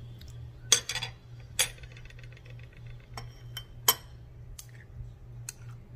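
Metal utensils clinking against a glass jar of sweet pickle relish and a glass bowl while the relish is dug out and scraped off. There are about eight sharp, separate clinks, the loudest about a second in and again near four seconds in.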